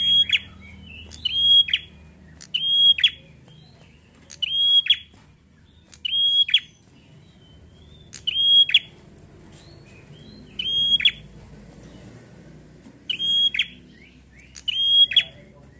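A caged prenjak (tailorbird) calling over and over: about nine sharp, high calls, one every couple of seconds, each a brief high note that drops steeply in pitch.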